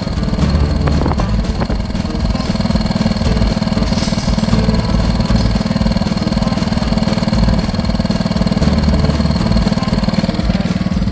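Honda ATC110 three-wheeler's small single-cylinder four-stroke engine idling steadily.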